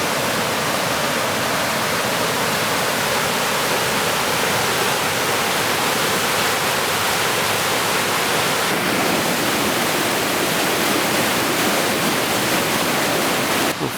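Steady rush of fast-flowing water, like a waterfall or tumbling mountain creek, cut off abruptly near the end.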